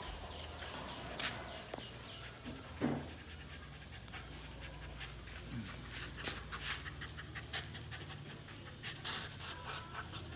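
Sick German Shepherd puppy panting, with dry crackles and rustles from the sugarcane stalks around it as it moves and mouths them. One short louder sound about three seconds in.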